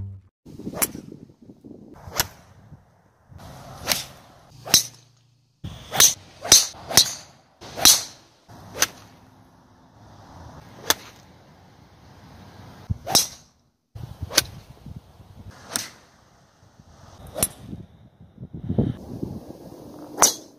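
Golf clubs striking balls, one shot after another: about fifteen sharp cracks of iron and driver strikes, some close together and some a couple of seconds apart, with quiet outdoor background between them.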